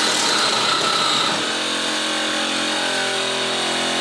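Two cordless one-handed reciprocating saws, a Milwaukee M18 Hackzall and a Kobalt 24V, running at once and cutting through quarter-inch steel screws. A harsh rasp of blades on metal gives way about one and a half seconds in to a steadier motor whine.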